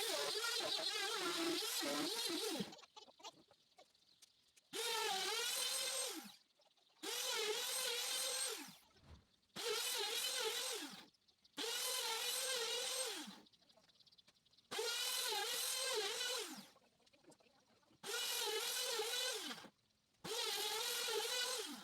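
Handheld electric power tool cutting the speaker opening in a wooden speaker box, run in eight short bursts of a second and a half to two and a half seconds; in each the motor holds a steady pitch and winds down as the trigger is released.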